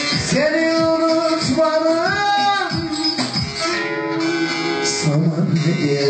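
Bağlama (long-necked Turkish saz) strummed and plucked, with a man's voice holding long, sliding notes without clear words; a lower held tone comes in about five seconds in.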